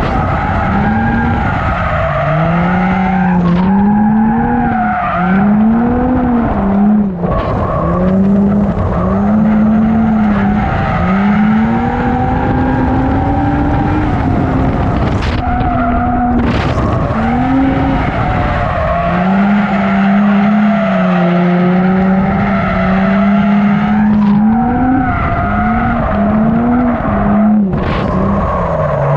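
A drift car's engine revving up and dropping back again and again as the throttle is worked through a slide, with tyre squeal over it.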